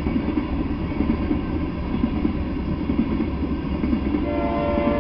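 Freight train of tank cars passing at speed: a steady, loud rumble of steel wheels on the rails. About four seconds in, a steady tone at several pitches joins it.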